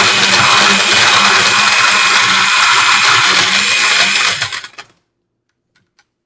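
Countertop blender motor running loudly, blending fruit, orange juice and ice. About four seconds in it is switched off and the motor winds down to a stop. A few faint clicks follow.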